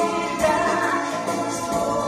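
Live rock-opera music from a stage performance: sustained band accompaniment with choir singing.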